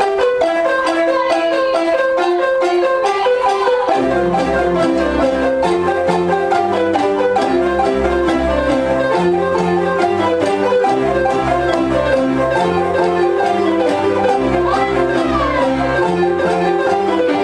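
An ensemble of children playing a piece on pitched instruments that sound like mallet percussion such as xylophones and glockenspiels, in short repeated melodic notes. A low bass line of longer held notes joins about four seconds in.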